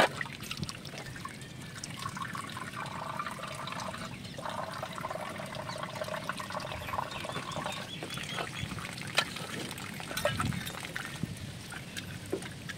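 Water from a garden hose running steadily and splashing as a metal cooking pot is rinsed and rubbed clean by hand under it.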